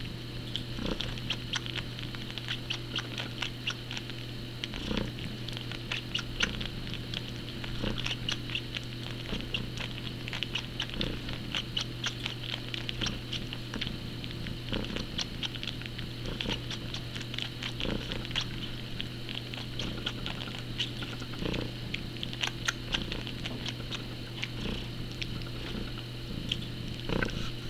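Young cat suckling like a nursing kitten, making quick, wet sucking clicks over a steady purr.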